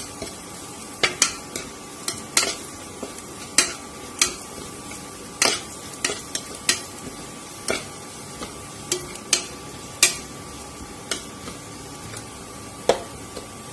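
Steel ladle stirring sliced onions and spices frying in oil in an aluminium pressure-cooker pot, with irregular sharp clinks and scrapes of metal on metal over a steady sizzle.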